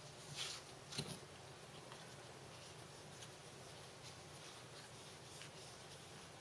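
Alcohol wipe rubbed across a Samsung Galaxy Note 4's glass screen: faint rubbing with a short swish and a light tap about a second in, then soft scattered ticks.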